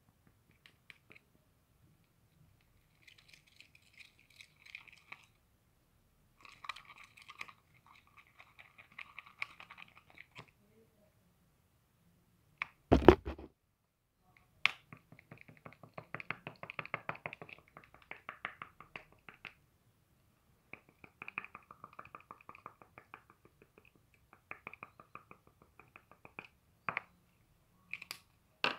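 Clear homemade slime being squeezed and pressed by hand, giving stretches of sticky crackling clicks several seconds long, with one loud knock about thirteen seconds in.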